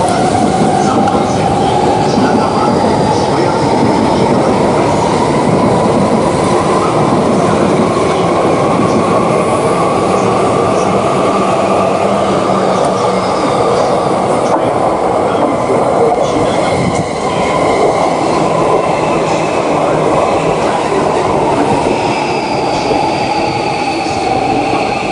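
Shinkansen bullet train running: steady rolling and rushing noise with a whine that climbs in pitch, holds, and sinks back near the end.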